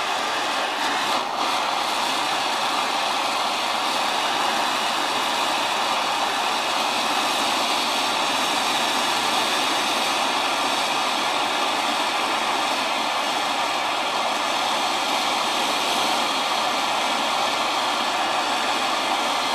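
Oxyacetylene torch flame hissing steadily while it heats a wire rod held in a bending jig.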